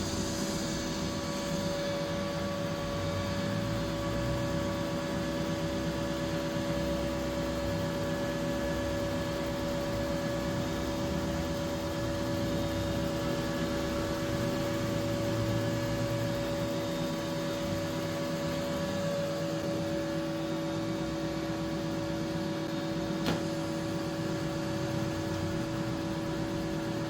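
TIG welding arc running steadily, a continuous hiss and hum, while buttering carbon steel with a molybdenum-bearing filler. A single short click comes near the end.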